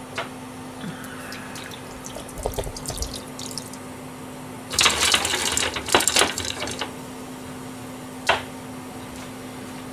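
Liquid poured from a small bottle into an aluminium pan of whelks, splashing for about two seconds midway. A steady low hum runs under it, and a single sharp knock comes near the end.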